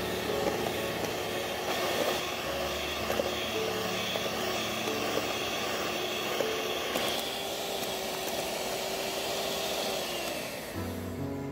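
Electric mixer running steadily at high speed, its whisk whipping cream in a metal bowl.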